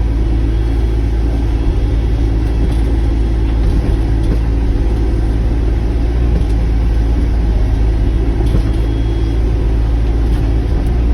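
Sany mini excavator's diesel engine running steadily under load while it digs dirt from around a cedar stump's roots.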